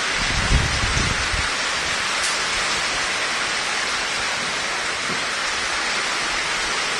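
Heavy rain falling steadily, an even, dense hiss, with a few low thuds in the first second and a half.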